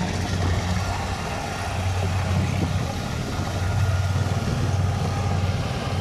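Rice combine harvester's engine running at a steady, even drone as the machine works through a paddy, harvesting standing rice.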